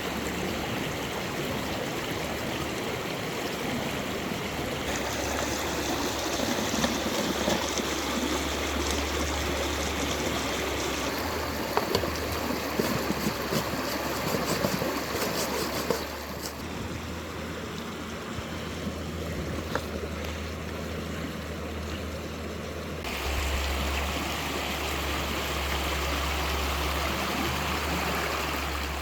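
Running water rushing steadily, its level and tone shifting abruptly a few times.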